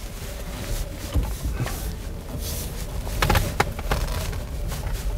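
Cabin noise inside a Nissan Leaf electric car rolling slowly: a low rumble, with a few light knocks about a second in and around the middle.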